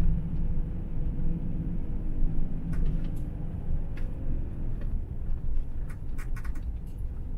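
Camper van engine and tyres running at low speed, a steady low rumble heard from inside the cab, with a few light clicks, several of them about six seconds in.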